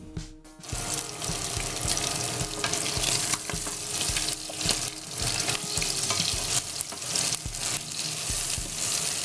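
Cubes of rib meat sizzling as they fry in oil in a frying pan, with a spatula scraping and knocking against the pan as they are stirred. The sizzle starts about half a second in and then runs on evenly, dotted with short clicks from the spatula.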